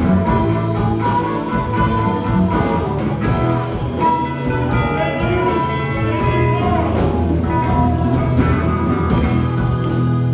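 Live blues-rock band playing: electric guitars, electric bass and drum kit, with harmonica over the top.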